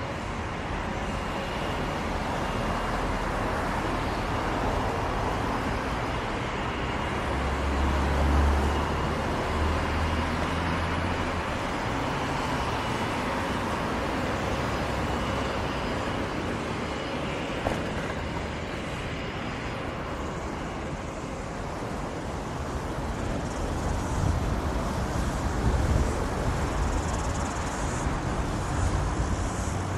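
Inline skate wheels rolling steadily on a paved path, with road traffic going by alongside. A few heavier low rumbles come about 8 to 11 seconds in.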